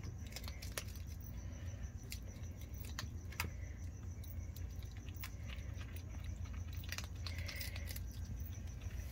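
Skunk eating food off a doormat close up: irregular small crunches and clicks of chewing, over a steady low hum.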